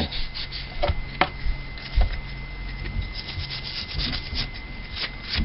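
A toothbrush scrubbing the inside of a small metal carburetor float bowl wet with gasoline and carburetor cleaner: quick, scratchy rubbing strokes with a few light clicks of the brush against the bowl.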